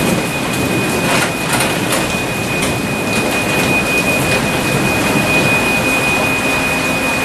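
Garage door opener running as the door closes on the MyQ voice command: a steady mechanical noise with a thin, steady high whine, and a few rattles about a second in.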